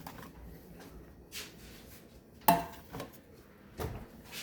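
Kitchen cookware and utensils clattering: a few light knocks and one sharper metallic clank with a brief ring about two and a half seconds in.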